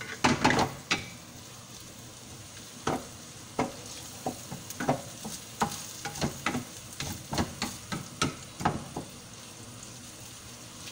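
Ground pork, onion and garlic sizzling as they sauté in a nonstick pan, with a spatula stirring and scraping against the pan. There is a quick flurry of strokes right at the start, then a run of irregular strokes from about three seconds in until about nine seconds.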